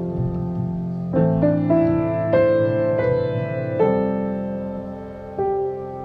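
Slow piano music: sustained notes and chords, with new chords struck about a second in, then around two and a half, four and five and a half seconds, each left to ring.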